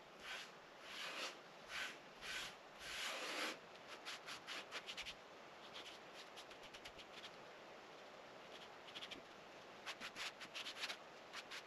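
Scrubbing strokes over the cast-iron surface of a Jötul 602 wood stove, rubbing in stove blacking. A few slower, longer strokes come first, then spells of quick short strokes, about four or five a second.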